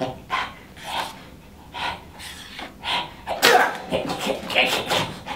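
A man's short, breathy non-word vocal noises voicing a bird puppet: a string of huffs and sniffs, one every half second or so, with a loud sudden burst about three and a half seconds in.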